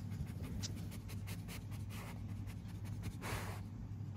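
Cocker spaniel puppies shuffling on fleece bedding: soft scratching and rustling of paws and bodies on the blanket, in short scratchy ticks, with a louder brief rustle a little after three seconds in.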